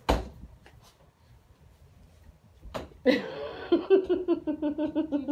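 A young girl giggling in quick repeated bursts, starting about three seconds in, after a sharp knock at the start and a quiet stretch.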